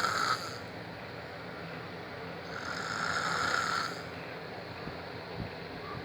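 A man snoring in deep sleep, slow and regular: one snore trails off just after the start, and another long one runs from about two and a half to four seconds in.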